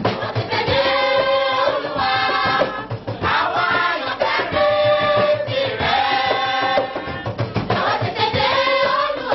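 Church choir singing a Yoruba song in harmony, in short held phrases, over a steady beat of drums and percussion. The voices come in about half a second in, over the drumming.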